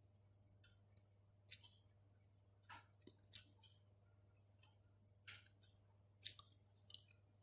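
Faint chewing of a mouthful of pizza: scattered short, wet mouth smacks and clicks, one every half second to a second or so, over a low steady hum.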